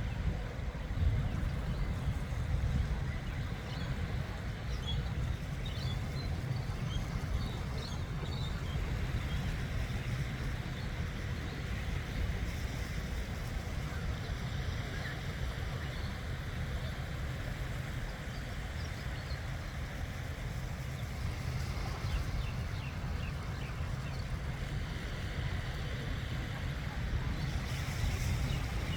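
Wind buffeting the microphone with a steady low rumble, over an even wash of sea along the shore, with faint high chirps now and then.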